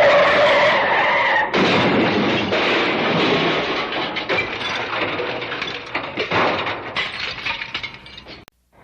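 Car crash sound effect: a tyre screech for about a second and a half, then a loud crash with many sharp crunching impacts and clattering debris that thins out over several seconds and cuts off near the end.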